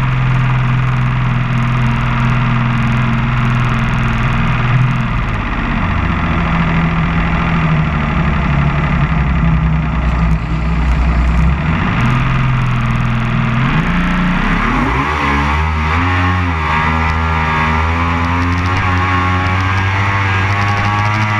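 Racing powerboat's engine running under way, heard from on board with water and wind noise. Its pitch drops about five seconds in, then rises and falls as the throttle is worked before settling to a steady run.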